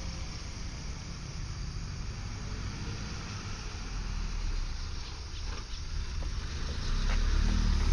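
Toyota Calya's engine running under load as the car climbs the bend toward the camera, a low steady hum that grows louder near the end. The car lacks power on the climb, which is said to be an injection problem.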